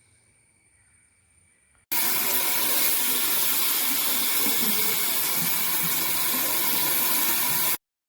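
Handheld shower head spraying water, a steady loud rush that starts suddenly about two seconds in and cuts off abruptly just before the end.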